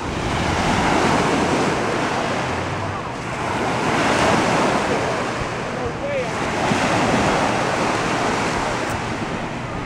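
Ocean surf washing onto a beach, the rush of water swelling and easing about every three seconds.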